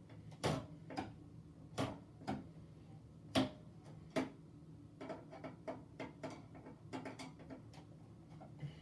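Irregular sharp clicks and knocks of computer parts being handled during disassembly: a few louder knocks in the first half, then quicker, lighter ticking.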